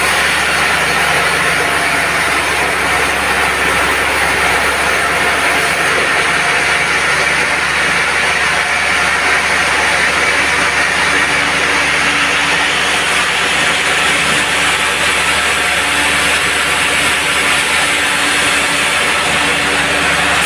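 Band sawmill running steadily, its blade sawing through a log with a continuous hiss over the machine's drone.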